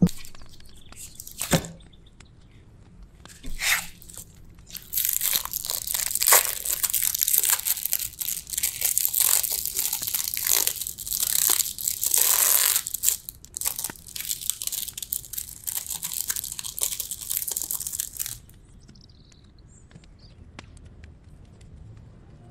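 Clear plastic pack of sliced cheese crinkling and crackling as it is handled and opened, for about thirteen seconds, then only soft faint sounds as a slice is peeled away. Two sharp knocks come before it, in the first few seconds.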